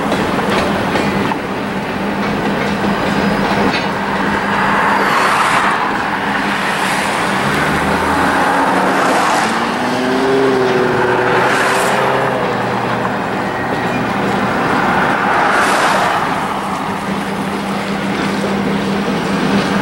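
Freight train rolling past slowly, wheels clattering over rail joints. From about halfway through, the low steady running of a Grand Trunk Western GP38-2 diesel locomotive's EMD 16-cylinder two-stroke engine joins the rail noise as the unit goes by.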